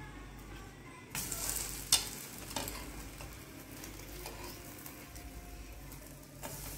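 Malpua batter pancakes sizzling in oil on a nonstick tawa, with a few sharp clicks and short scrapes of steel tongs against the pan as they are turned over, most of them in the first half.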